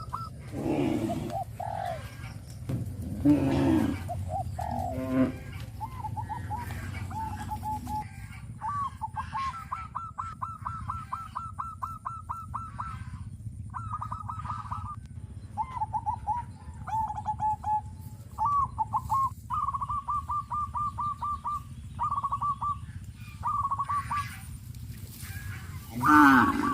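Cattle mooing, a few lower calls in the first seconds and a loud one near the end, among many fast rattling call series from fowl, each lasting a second or two. A steady low rumble runs underneath.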